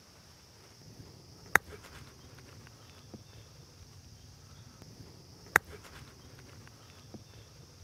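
Two crisp strikes of a 60-degree lob wedge clipping a golf ball off short grass, about four seconds apart, over a faint steady background.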